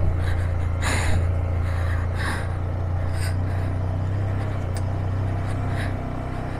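Yamaha MT-15's single-cylinder engine running steadily under load as a low, even hum on a steep mountain road, ridden without pulling the clutch for fear of burning the clutch plate. A few short breathy puffs sound over it, about one, two and three seconds in.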